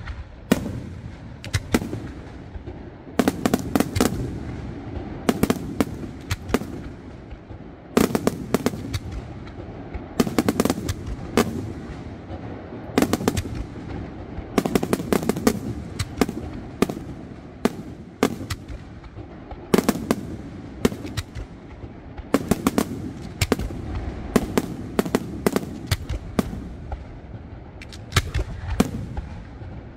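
Aerial firework shells bursting overhead in quick succession: clusters of sharp bangs every two or three seconds, each followed by a lower rumbling echo.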